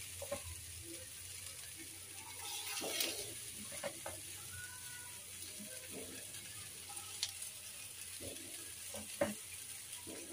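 Soaked rice and spiced vegetables sizzling faintly in a pan, with a spatula scraping and knocking against the pan now and then. There is a louder swell of frying about three seconds in.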